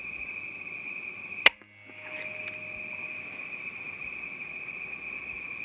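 A single .177 air rifle shot firing a slug, one sharp crack about one and a half seconds in. Under it runs a steady high-pitched chirring of crickets, which drops out briefly right after the shot.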